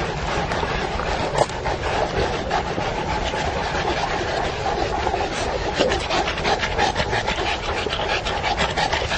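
Saint Bernard dogs panting close by, over a steady rustle. Many short, quick strokes grow denser from about halfway through.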